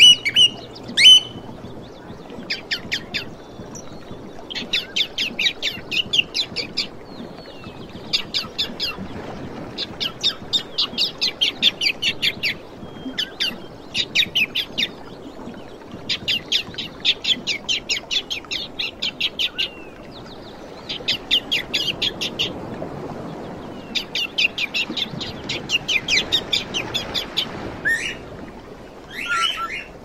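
Small caged parrots chattering: runs of rapid, high-pitched chirps, roughly ten a second, each run lasting one to two seconds with short pauses between. There are a couple of louder, sharper calls right at the start and again near the end.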